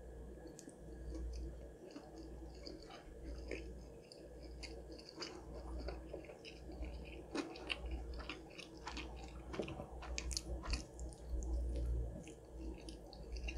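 Close-miked chewing of a crispy spicy fried-chicken sandwich topped with macaroni and cheese: a constant run of small wet clicks and smacks over soft jaw thuds, with another bite taken near the end.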